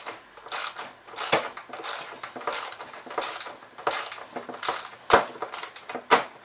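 Hand ratchet clicking in repeated back-and-forth strokes, about one every half second, as it runs down the bolts holding a backpack blower's new frame.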